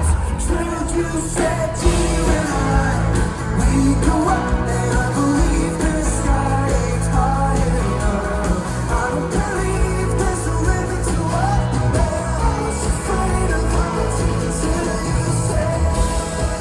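Folk-rock band playing live with drums, bass and singing.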